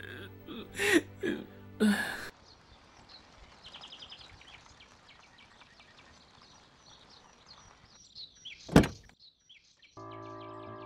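A man sobbing and gasping over soft music, then a quiet street with small bird chirps. A car door shuts with one loud thunk about nine seconds in, and a sustained music chord starts a second later.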